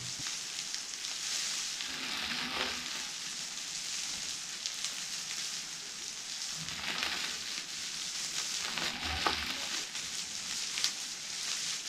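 Plastic bubble wrap rubbed and crinkled close to the microphone, a steady crackling hiss used as a foley imitation of rain.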